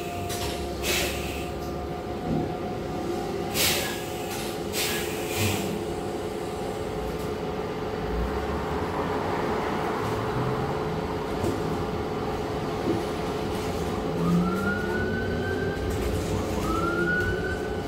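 City bus in motion, heard from inside the cabin: a steady drive hum and road noise, with a few sharp rattles in the first several seconds. Near the end, rising whines climb and level off twice.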